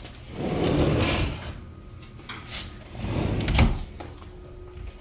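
An older sliding glass door rolling along its track twice, about half a second in and again about three seconds in. The second slide ends in a sharp knock.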